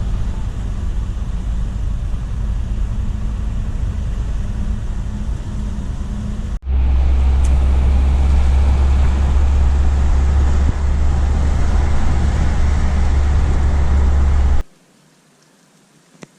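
Steady low road and engine rumble of a car driving, heard from inside the cabin. It jumps louder at a cut about halfway through and drops away sharply a couple of seconds before the end.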